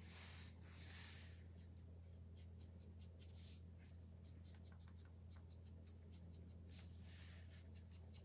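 Faint scratchy swishes of a fine paintbrush stroking paint onto a wooden letter, a few strokes with light ticks between them, over a steady low hum.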